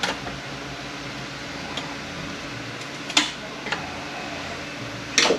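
Tools clicking and knocking on the transmission case and servo parts while a spring-loaded servo is worked free, with two louder knocks about three and five seconds in, over a steady background hum.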